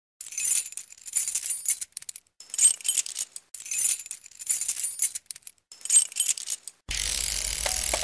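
Bright metallic jingling, like keys or small bells shaken, in four bursts a second or so long. Near the end a steadier, fuller music bed comes in.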